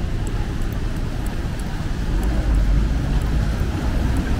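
City street traffic on a wet road: a steady low rumble and tyre hiss from passing vehicles, swelling about halfway through as one goes by close, with faint ticks of falling rain.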